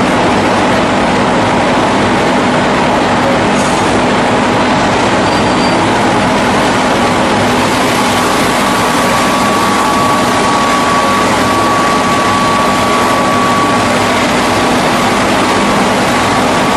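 Hydraulic single-spindle rotary veneer lathe and its veneer line running: a loud, steady mechanical din with a constant low hum. A thin high whine comes in about eight seconds in and fades about six seconds later.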